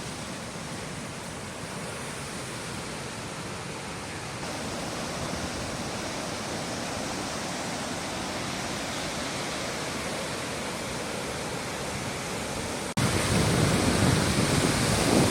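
Floodwater in a swollen river rushing, a steady even noise. About thirteen seconds in it cuts to a louder, rougher rush with more low rumble.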